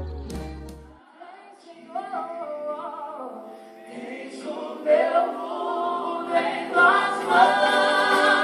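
Live gospel worship singing: a female lead voice with backing vocals. The band's low end drops away about a second in, leaving the voices nearly alone, and the sound fills out again from about five seconds.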